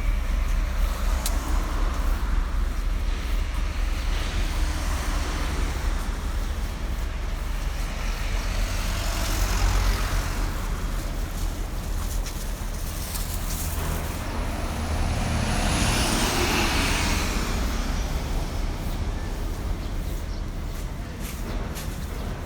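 Road traffic: vehicles passing in swells of noise a few seconds apart over a steady low rumble, with a brief high whine partway through.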